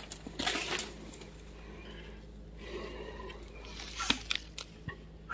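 Dry conifer branches and twigs rustling and snapping as the downed tree's limbs are handled and stepped on, with a few sharp cracks about four seconds in.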